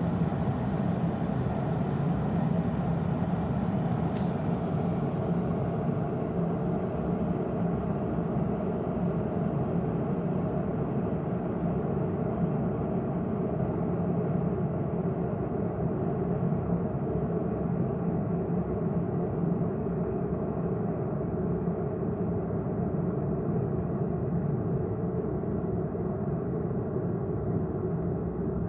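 De'Longhi KBLA3001 Active Line electric kettle heating a full 1.7 L of water, a steady low noise of the water coming to the boil.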